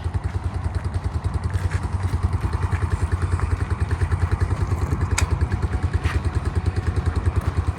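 Small single-cylinder pit bike engine idling steadily as it warms up, an even rapid pulse of about a dozen beats a second. A single sharp click about five seconds in.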